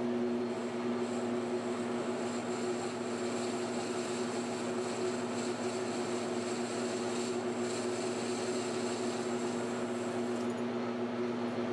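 PM1236T metal lathe running steadily with a hum while its tool turns a titanium round bar. A thin high tone over the hum drops out near the end.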